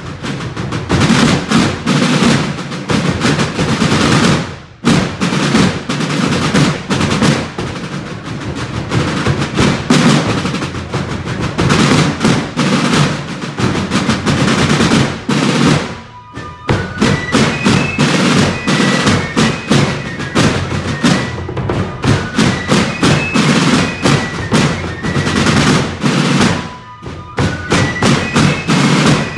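A line of rope-tension field drums playing a rudimental drum beat together, breaking off briefly about five seconds in and again about halfway. After the halfway break, fifes play a high melody over the drums.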